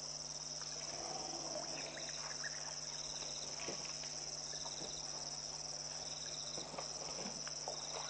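Steady, high-pitched trilling of an insect chorus, with a low steady hum beneath it and a few faint scattered scuffs.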